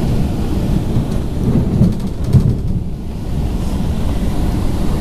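Cabin running noise of an MTR Tung Chung Line K-stock (Rotem) electric train under way: a steady low rumble of wheels on rail and running gear, with a few faint ticks in the middle.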